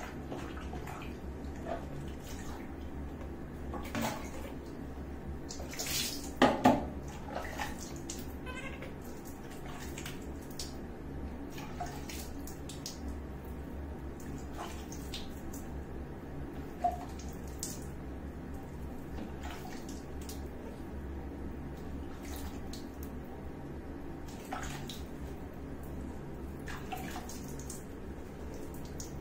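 Water splashing and dripping while a newborn monkey is bathed by hand over a bucket of water, with a couple of louder splashes about six and a half seconds in and one more shorter one partway through.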